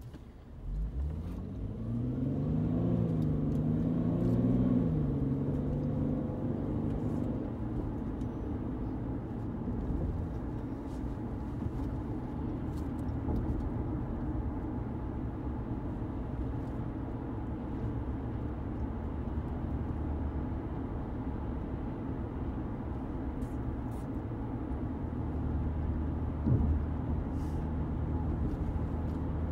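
Car pulling away from a stop, heard from inside the cabin. The engine pitch rises during the first few seconds, dipping once as it shifts gear, then settles into steady engine and tyre rumble while cruising. A single short thump comes near the end.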